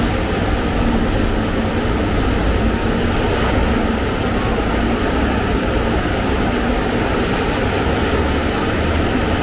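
Heavy rain falling, a steady rushing noise.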